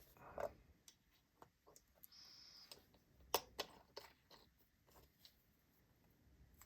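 Faint small clicks and taps from handling a fidget spinner and its freshly fitted bearing, with a brief soft hiss about two seconds in and the sharpest click a little after three seconds.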